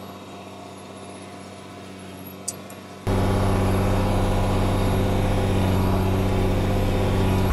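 Tractor engine running at a steady speed, with one sharp click about two and a half seconds in; about three seconds in the engine suddenly becomes much louder and closer.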